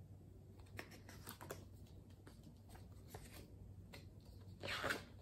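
Faint rustling and light clicks of a picture book's paper pages being handled, with a louder brief swish of a page near the end.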